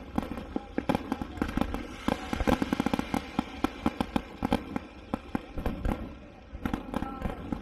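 Fireworks display: a rapid, irregular string of bangs and pops, thickest about two to three seconds in.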